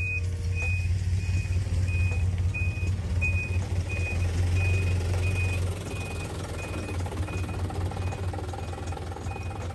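Small dump truck reversing: its backup alarm beeps steadily, about one and a half beeps a second, over the low drone of its engine. The engine drops in level about six seconds in.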